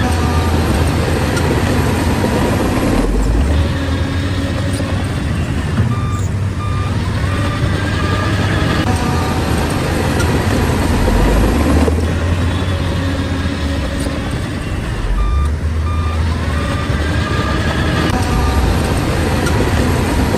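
Shantui bulldozer's diesel engine running under load, its low drone rising and falling, with a reversing alarm beeping in short runs of beeps.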